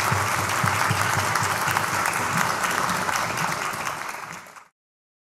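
Concert hall audience applauding, a dense, steady clatter of many hands clapping that fades out to silence about four and a half seconds in.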